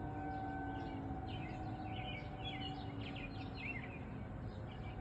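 Several distant outdoor warning sirens sounding faintly during a test, their tones overlapping, one slowly falling in pitch and fading over the first few seconds. Birds chirp throughout.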